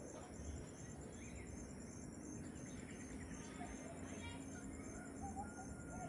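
Faint evening birdsong, a few scattered short chirps, over a steady high pulsing insect sound.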